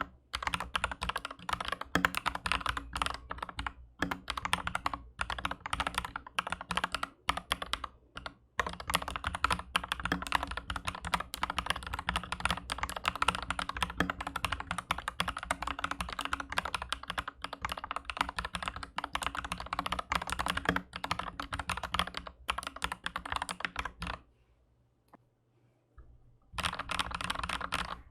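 Continuous fast typing on an Aflion AF82 75% mechanical keyboard fitted with MM linear switches on a steel plate: a dense run of keystroke clacks. It stops for about two seconds near the end, then starts again.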